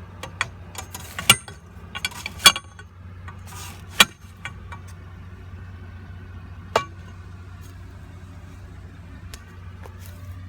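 A series of sharp clicks and clinks, several in the first few seconds and single ones about four and seven seconds in, over a steady low hum.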